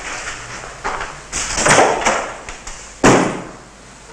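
A door being shut with a loud bang about three seconds in, which trails off in the room; before it comes a swelling stretch of movement noise as people go out.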